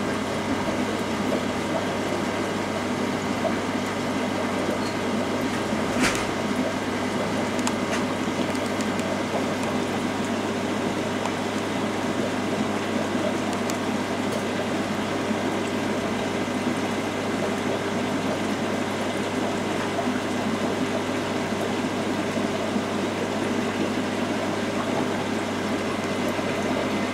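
Steady hum of aquarium pumps and filtration with a constant wash of moving water, made of several fixed pitches over a smooth hiss. One sharp click about six seconds in.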